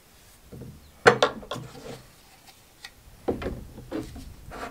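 Hollow knocks and clatter of PVC pipe fittings being set down and pushed together on a wooden workbench, with the loudest knock about a second in and a second run of knocks near the end.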